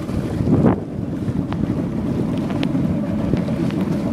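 Skeeter bass boat under way on open water, its Mercury 150 outboard running steadily beneath heavy wind noise on the microphone.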